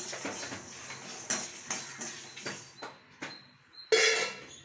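A metal spoon stirring and scraping dry whole spices and dried red chillies around an empty metal kadai, in a run of quick scrapes and clicks. A single louder metal clank comes near the end.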